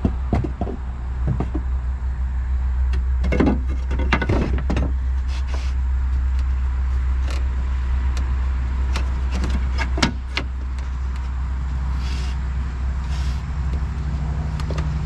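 A steady low mechanical hum, with scattered knocks and clicks on top, thickest a few seconds in and again about ten seconds in.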